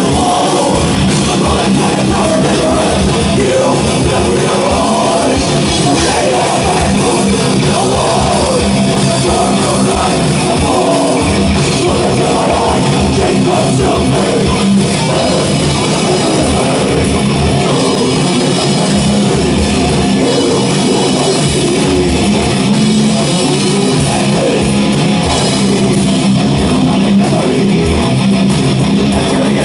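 Extreme metal band playing live and loud: electric guitars and a drum kit.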